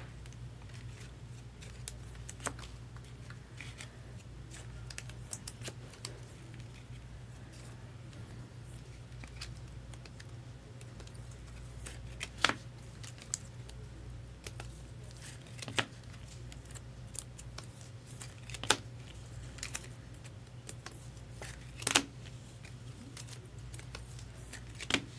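Small clicks, snips and rustles of a trading-card box being cut open and unpacked, with a handful of sharper clicks from about halfway on. A low steady hum runs underneath.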